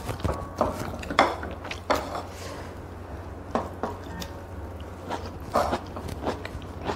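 Mukbang eating sounds: chopsticks clicking and scraping against a large noodle pan and bowls, mixed with noodle slurping and chewing. Scattered sharp clicks and knocks, over a low steady hum.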